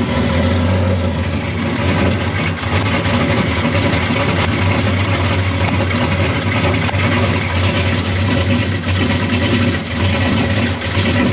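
V8 engine idling steadily, heard up close at its exhaust headers. The owners suspect a leaking head gasket or a warped cylinder head.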